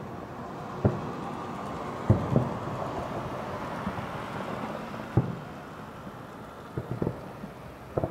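Aerial firework shells bursting overhead in an irregular series of about seven sharp booms, each with a short rumbling echo, over a steady background din.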